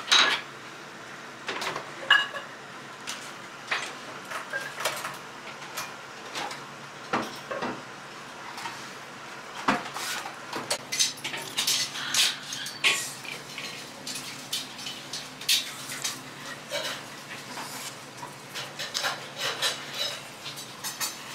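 Dishes and tableware clinking and knocking in a restaurant, many short sharp clicks at irregular intervals, over a steady low background hum.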